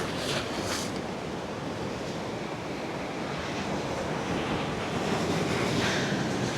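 Ocean surf washing in steadily, a continuous hiss and rumble that swells a little near the start and again near the end, with wind buffeting the microphone.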